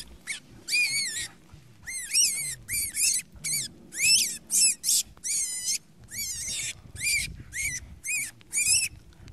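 Wild rabbit, pinned by a lurcher, screaming in distress: a rapid string of shrill squeals, each rising and falling in pitch, about two a second.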